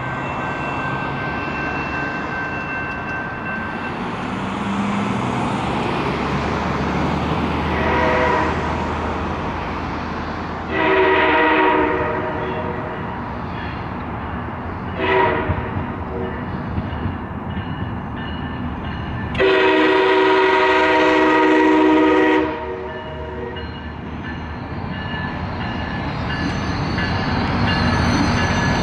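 A MARC diesel locomotive sounds its air horn on the approach to a grade crossing: four blasts in the crossing-signal pattern, the third short and the last held about three seconds. The crossing bell rings throughout, and the rumble of the approaching train grows near the end.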